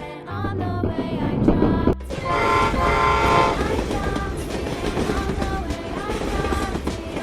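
Train sound effects from a railroad-crossing animation: a train running with a rumbling clatter, and a horn held for about a second and a half a couple of seconds in.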